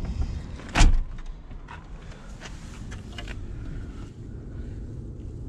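A single sharp clunk about a second in, then a few light clicks and handling noise as the car's interior is worked by hand, over a low steady rumble.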